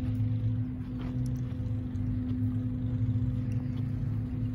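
Steady low mechanical hum, one held tone with a fainter higher overtone, over an uneven low rumble.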